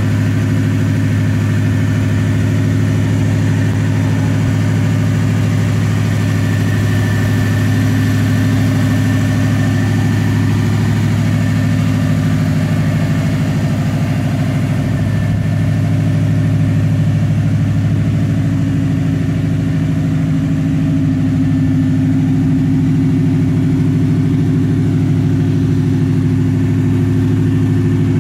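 Lifted 1985 Ford F-150 pickup with a Ford Racing crate engine, idling steadily.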